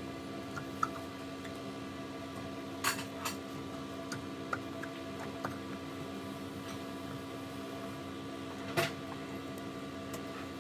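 Steady electrical hum with a few sharp metallic clinks and taps, the loudest near the end.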